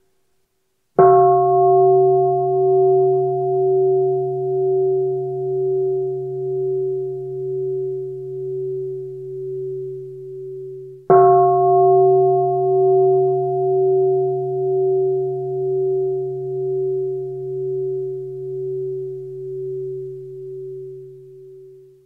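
A Buddhist bowl bell struck twice, about ten seconds apart. Each strike rings on with a slow wavering in loudness and fades over about ten seconds. It is a bell of mindfulness, sounded as a signal to stop and follow the in-breath and out-breath.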